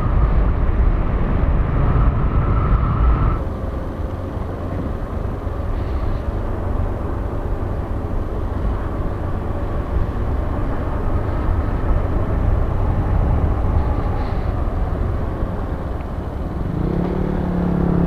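Motorcycle engine running under way with wind noise on the microphone, with a steady whine that stops about three seconds in. Near the end a deeper engine note swells louder.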